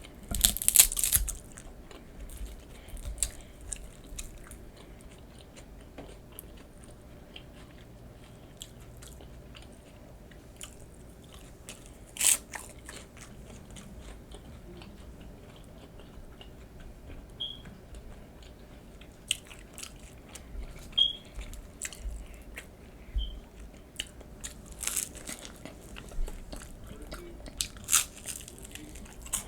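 Close-miked eating of nachos: loud crisp bites and crunching of chips, then steady quieter chewing. The big crunches come about a second in, near the middle, and twice near the end.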